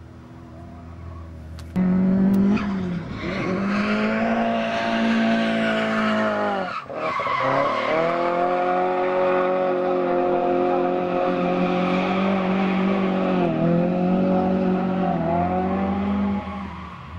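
Drift car's engine held high and steady while its rear tyres screech in a long sideways slide. The sound comes in suddenly about two seconds in, breaks off for a moment about seven seconds in and picks straight back up, and fades just before the end.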